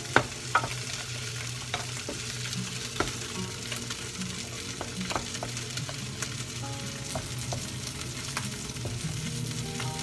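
Gilt-head bream pan-frying in a little oil over low heat, a steady sizzle, while a wooden spoon stirs quinoa in a stainless-steel saucepan, knocking against the side of the pot now and then.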